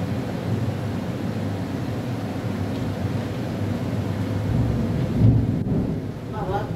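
Rolling thunder: a continuous low rumble that swells to its loudest about five seconds in.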